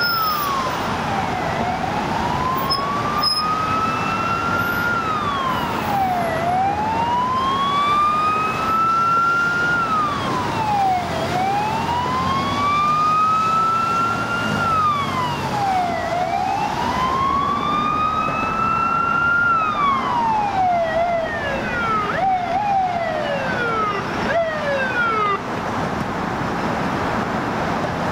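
Fire engine siren sounding a wail, each cycle rising slowly and dropping quickly about every five seconds, then switching to short, rapid falling sweeps about twenty seconds in. Traffic noise runs beneath it.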